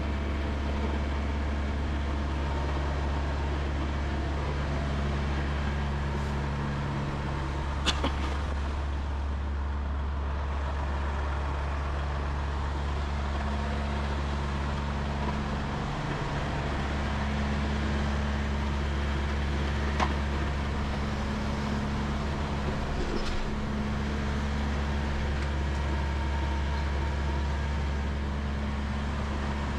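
Semi truck's diesel engine running with a steady low drone. A sharp click about 8 seconds in and another near 20 seconds.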